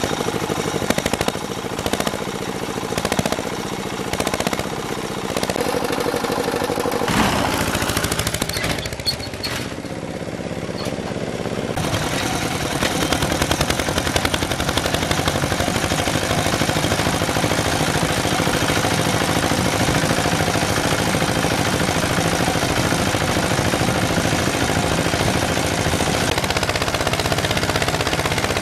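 Single-cylinder diesel engine of a two-wheel walking tractor running with a fast, pounding exhaust beat. It is uneven for the first several seconds, then settles into a dense, steady beat from about twelve seconds in as the tractor drives along.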